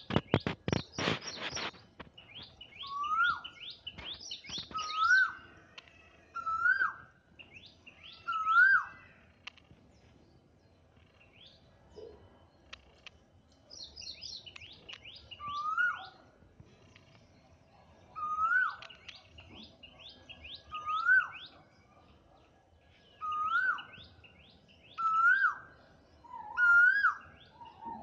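Asian koel calling: a loud rising 'ku-oo' note repeated about every two seconds, in two runs with a pause of several seconds in the middle. Smaller birds chirp rapidly in the background, and a cluster of sharp clicks sounds in the first couple of seconds.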